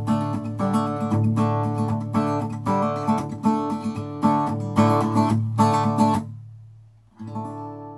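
Outro music: acoustic guitar strumming in a steady rhythm, breaking off about six seconds in, then one last chord that rings out and fades.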